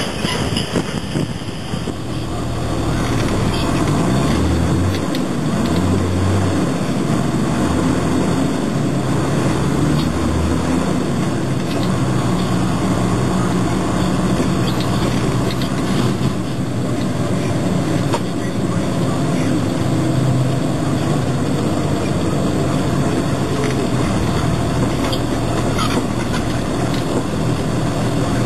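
Semi truck's diesel engine and road noise heard from inside the cab while driving, a loud steady rumble. The engine note steps up and down several times in the first ten seconds or so, then holds fairly even.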